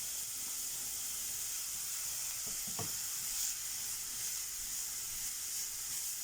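Chopped carrot, onion and garlic sizzling in oil in a hot frying pan, a steady hiss, with one faint knock a little before the middle.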